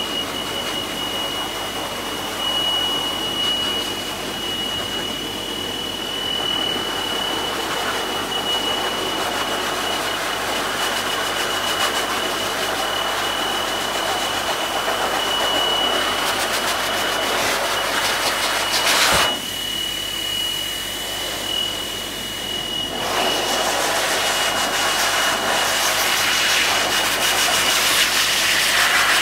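High-velocity pet force dryer blowing a steady rush of air, with a thin whistle running through it. About two-thirds of the way through there is a sharp click, the rush drops for a few seconds, then comes back full.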